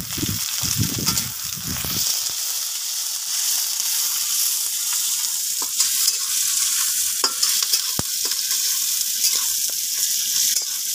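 Chopped onion and slit green chillies sizzling as they fry in hot mustard oil in a metal kadai, with a flat metal spatula scraping and clicking against the pan as they are stirred.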